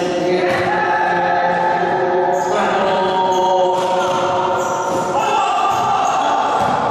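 Singing voices in long held notes, each lasting a second or two, with a basketball bouncing on the court floor.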